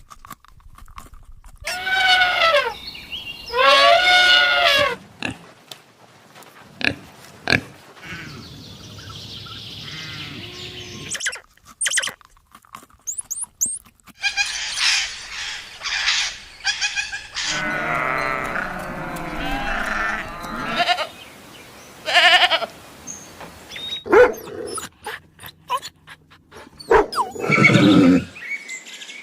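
Farm animals calling: a string of separate long, wavering calls with pauses between them.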